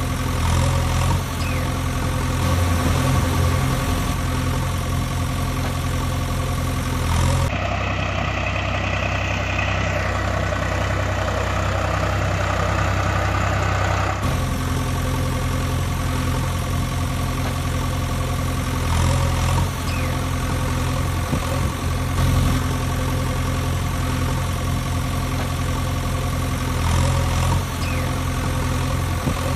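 Engine idling steadily with a low, even hum. For several seconds about a quarter of the way in, the sound changes to a brighter, rougher running, then the steady idle returns.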